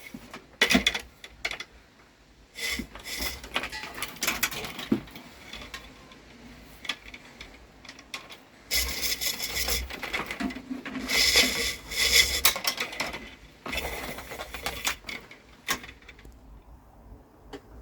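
Electrical cable being drawn against a sharp knife blade set in a wooden block, the insulation scraping and slitting open in uneven strokes with knocks of the wire against the wood.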